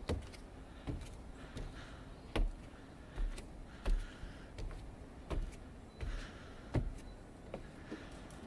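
Footsteps on wooden stairs and a wooden landing: a steady climbing pace of hollow thumps, about one step every three-quarters of a second.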